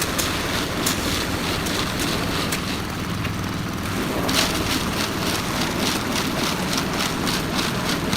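Concrete mixer's engine running steadily, with scattered knocks and rattles.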